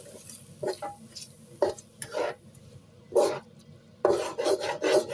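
Spatula stirring a seasoning sauce with sautéed garlic, chili and onion in a frying pan: separate scraping strokes against the pan, coming in quick succession near the end.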